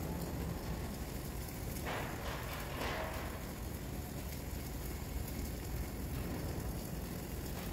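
Flux-cored arc welding: a steady crackle and sputter of the arc as a bead is laid.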